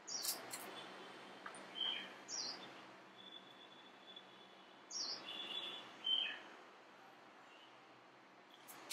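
Small birds chirping intermittently: short, high calls and brief whistled notes, some gliding in pitch, over a quiet outdoor background. A couple of light clicks come right at the start.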